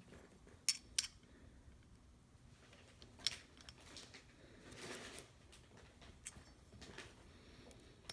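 A few small sharp clicks and a brief scrape of a screwdriver tip working against the plastic tail light and metal body of a 1/64 diecast model car, prying the tail light out.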